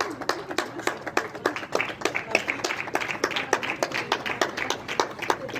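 A small group of people clapping: sharp, irregular claps, several a second, with faint voices underneath.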